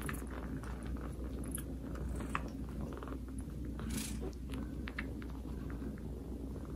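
A domestic cat purring steadily, close up, with scattered small clicks over the purr.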